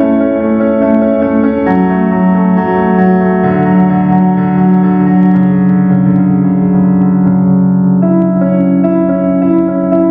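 Electric keyboard playing slow, held chords that change every couple of seconds, with no singing.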